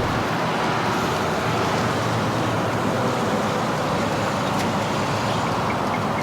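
Steady city street traffic noise: an even wash of passing vehicles.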